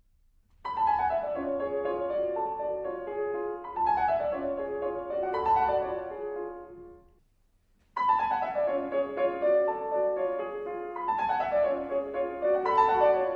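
Recorded piano playing a short passage of falling runs of notes, heard twice with about a second of silence between. The two passes are recordings of the same player taken at different microphone positions.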